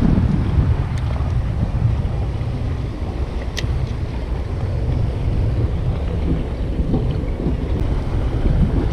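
Wind buffeting the microphone, a steady low rumble, over sea water washing against the rocks. A single sharp click about three and a half seconds in.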